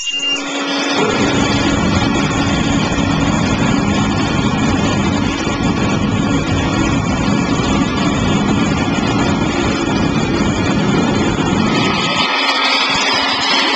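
Homemade turbine combustion chamber burning Jet-A1 aviation fuel with air forced through it: a loud, steady rush of flame with a faint hum beneath. About twelve seconds in the deep rumble drops away, leaving a higher rush of air.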